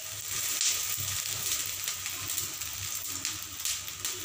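Tavsole (cucumber rice-batter pancake) sizzling on a hot iron griddle (bhida), its surface wet with dabbed-on cold water: a steady hiss with small crackles.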